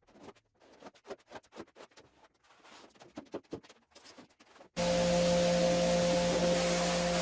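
Faint, scattered scraping and rubbing strokes on the carpet. Then, near the end, a cleaning machine's motor switches on abruptly and runs with a loud, steady hum and hiss.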